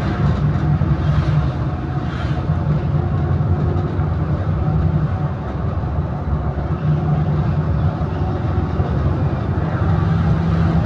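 Engine of the vehicle carrying the camera running steadily at cruising speed, with a low hum and road and wind noise.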